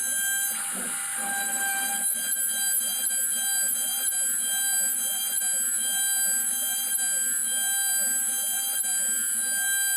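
CNC router running: a steady high whine from the spindle, with the stepper motors' tone rising and falling about once a second as the axes repeat their moves. There is a short burst of rougher cutting noise about a second in.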